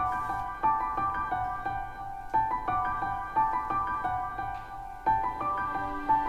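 Background music played on piano: notes and chords struck one after another and left ringing.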